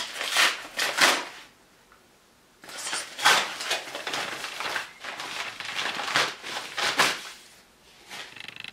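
Yellow padded paper mailing envelope being torn open and handled: crinkling and tearing in bursts for about a second and a half, a pause, then about five seconds of continuous crinkling as it is pulled apart, fading near the end.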